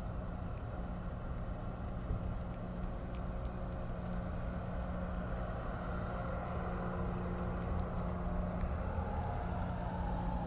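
Steady low mechanical hum and rumble, with faint light ticks over it in the first few seconds.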